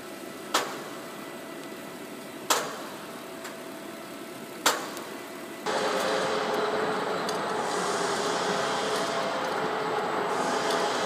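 Hose-making lathe running with a steady hum while it winds rope spirally onto a hose, with three sharp clacks about two seconds apart. About halfway through, the sound jumps abruptly to a louder, hissier machine whir.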